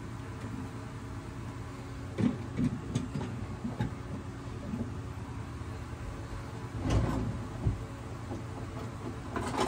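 Scattered knocks and clatters of kitchen things being handled and set down, over a steady low hum.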